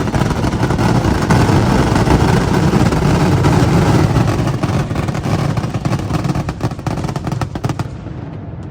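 Fireworks finale: a dense barrage of rapid bangs and crackling overhead, thinning out near the end.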